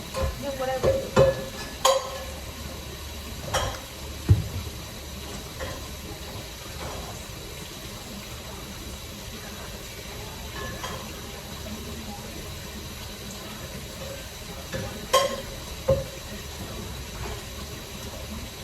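Kitchen utensils clinking and knocking against cookware over a steady low hiss. There is a cluster of knocks in the first few seconds and two more near the end.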